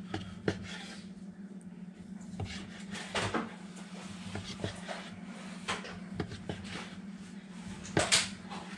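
Chef's knife slicing through a cooked venison tenderloin, the blade tapping and scraping on a plastic cutting board at each cut: scattered light knocks, the loudest about three seconds in and near the end, over a steady low hum.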